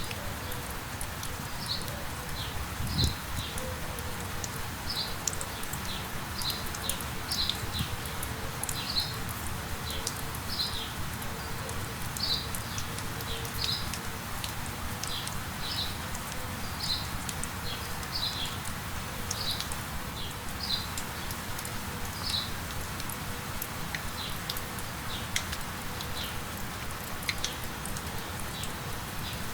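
Steady rain hiss with a bird giving short, high chirps over and over, about one a second, growing fainter near the end. A single low thump about three seconds in.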